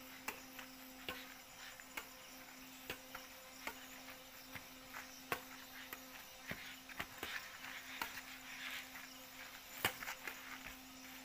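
Insects chirring steadily under a low, even hum, broken by sharp clicks roughly once a second.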